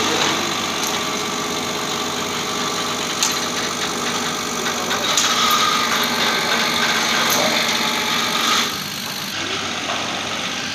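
A steady machine motor hum, with a few sharp metal clinks from the chain and steel beam; the hum drops a little in level near the end.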